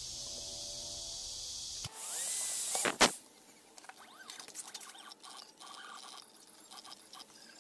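Ryobi cordless drill drilling a hole through a clear plastic sheet. About two seconds in it speeds up with a rising whine and runs for about a second, then stops with a sharp click, followed by faint clicks and handling noise.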